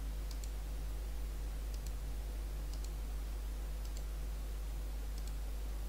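A handful of faint computer mouse clicks, spread out irregularly, over a steady low electrical hum.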